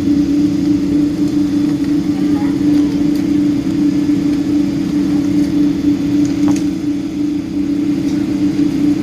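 Steady engine drone and rumble inside the cabin of a Boeing 777-200 airliner, with a constant low hum that stays level throughout.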